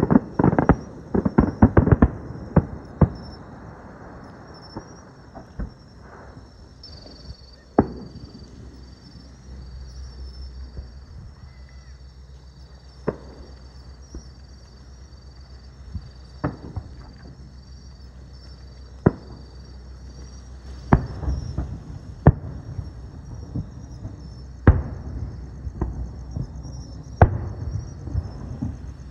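Aerial fireworks bursting: a rapid crackle of bangs at the start, then single sharp bangs every few seconds with a low rumble between them.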